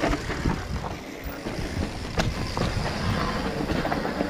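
Mountain bike rolling over a dirt singletrack trail: tyre rumble with scattered knocks and rattles from the bike over bumps, one sharper knock about two seconds in, and wind on the microphone.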